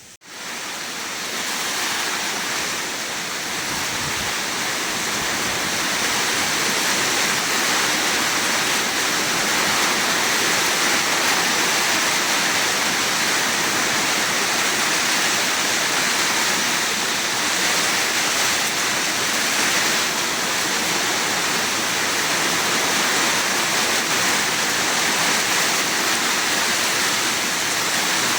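Heavy summer-storm rain pouring down in a steady, dense rush that comes in abruptly at the start and then holds without letting up.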